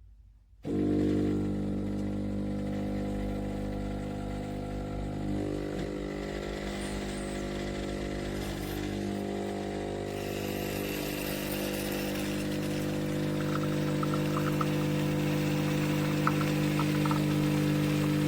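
Philips Baristina espresso machine's pump running steadily as it brews, with a buzzing hum that starts abruptly about a second in. A hiss joins about halfway through.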